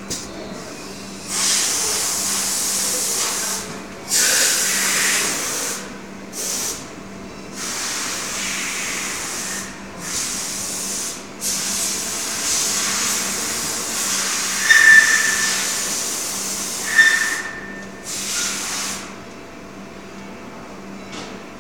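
Plastic injection molding machine working with the mold clamped shut: a steady hum under a series of hissing bursts, each a second or two long, with two short high squeaks in the second half.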